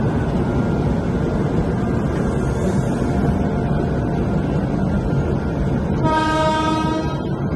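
Train running with a steady rumble, and a single horn blast about a second long near the end.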